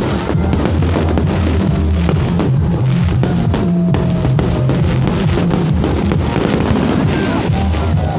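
Loud music with a heavy bass line and a drum beat.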